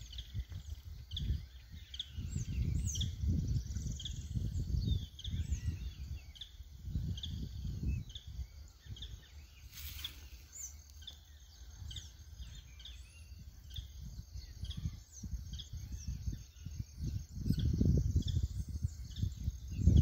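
Birds chirping: many short, high calls scattered through the trees. Wind buffets the microphone in low rumbling gusts, strongest near the end.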